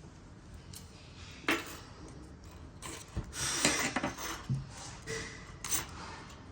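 Plastic clicking and scraping from a Porsche remote key's case being prised apart by hand: one sharp snap about one and a half seconds in, rubbing and rattling in the middle, and a few lighter clicks near the end.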